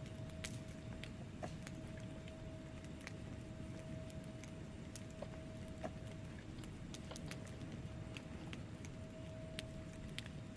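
Wood fire crackling in a fireplace: irregular sharp pops and snaps from the burning logs over a steady low rumble of the flames.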